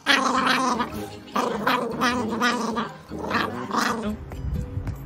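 A pug vocalizing in four long, wavering moan-like grumbles while a massage gun is pressed against its back. After about four seconds the voice stops and a lower rumbling sound takes over.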